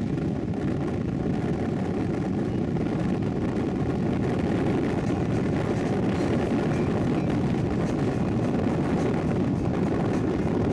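Steady road noise inside a moving car: engine and tyres making a low, even rumble.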